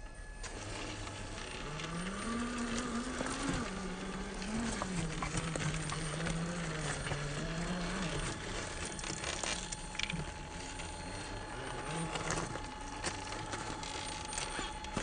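Electric motor of a Traxxas TRX-4 RC crawler whining as the truck crawls over rocks, its pitch rising and falling with the throttle. Small knocks and scrapes of the tyres and chassis on stone.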